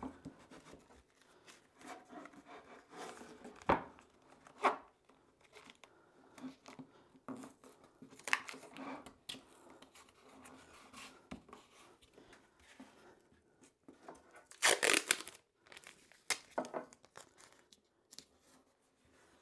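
Brown packing tape pulled off the roll and torn into strips, then pressed and smoothed onto wooden parts. It comes as scattered short rips, the longest and loudest about fifteen seconds in.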